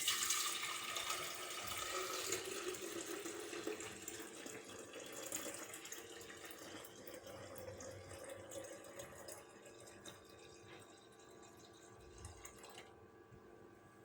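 Water running from a tap into a sink. It is loudest at first, grows gradually quieter, and is shut off near the end.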